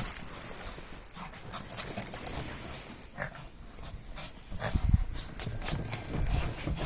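Shih Tzus moving about, freshly covered in snowballs: scattered small clicks and a few soft thumps, with faint dog noises.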